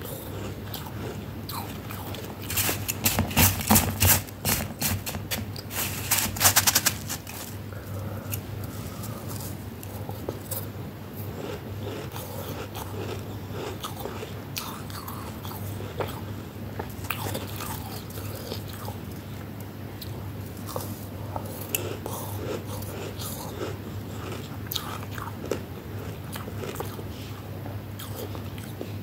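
Close-miked crunching of flaky freezer frost being bitten and chewed, loud and dense for a few seconds near the start. After that come softer scattered crackles of frost over a low steady hum.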